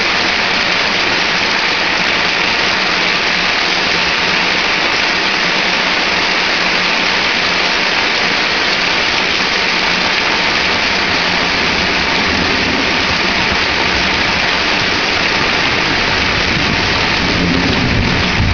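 Heavy thunderstorm rain pouring down as a loud, steady hiss. A low rumble swells near the end.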